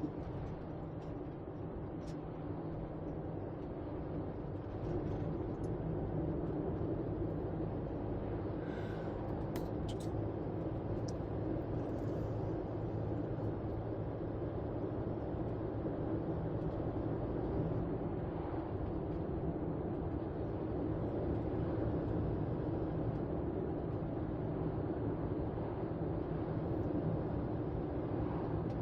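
Steady engine and tyre noise inside the cabin of a moving car, an even low hum.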